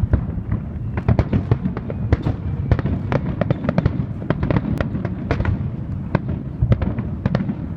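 Fireworks crackling: a dense, irregular run of sharp cracks and pops, several a second, over a steady low rumble.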